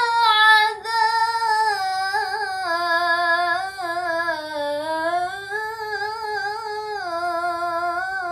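A girl's voice in melodic Quran recitation (tilawah), holding one long ornamented note on the elongated end of a word, its pitch wavering up and down without a break.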